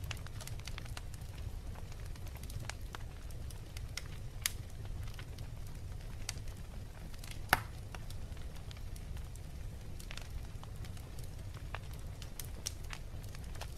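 Wood fire crackling in a fireplace: scattered sharp pops and snaps over a steady low rumble, the loudest pop about seven and a half seconds in.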